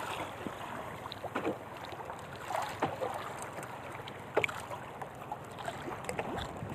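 Choppy sea water slapping and splashing against the hull of a small outrigger canoe, with irregular short splashes over a steady wash of wind and water.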